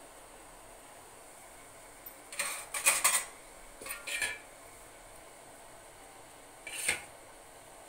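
Stainless steel plates clattering and scraping in three short bursts, about two and a half, four and seven seconds in, the first the loudest.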